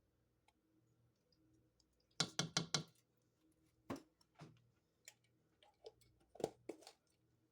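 Light clicks and taps of kitchen utensils and containers being handled: a quick run of about five taps, then scattered single clicks and another short cluster near the end.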